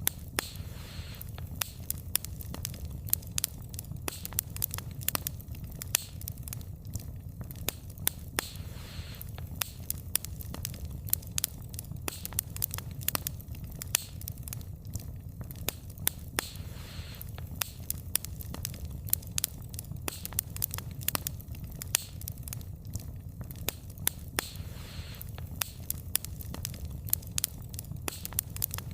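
Wood fire burning with frequent sharp crackles and pops of the logs over a steady low rumble of the flames, with a soft hiss every few seconds.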